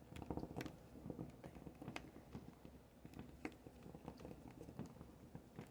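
Faint, irregular small clicks and scrapes of a knife tip working a tiny screw in a tablet's plastic and metal frame.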